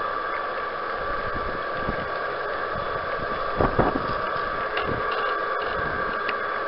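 G gauge model train running along garden railway track, heard from a camera riding on it: a steady whirring hiss with a constant whine, with scattered knocks from the wheels on the track and a louder double knock just past the middle.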